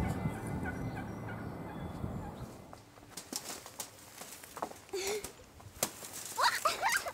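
Music fading out over the first couple of seconds, then scattered light taps and chickens calling: a single call about five seconds in, then a run of wavering, rising and falling calls near the end.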